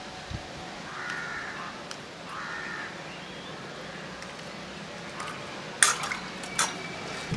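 Two short calls from a bird in the background, about a second apart, then a few sharp knocks near the end over a steady low background hiss.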